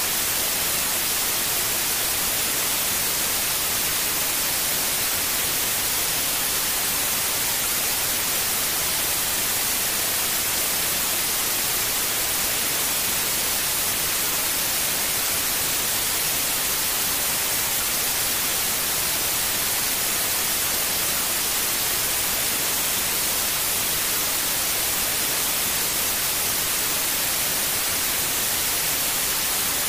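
Steady white noise: an even, unbroken hiss, strongest in the treble, with no change in level.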